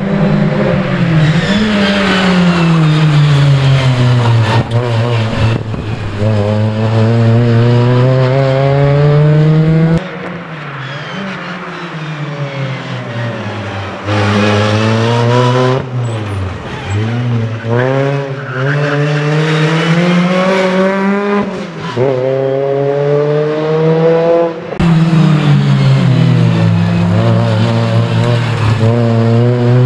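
Ford Fiesta ST rally car's four-cylinder engine revving hard, its pitch climbing again and again and dropping sharply between climbs as the car accelerates, shifts and brakes around a tight course. It is quieter for a few seconds about a third of the way in.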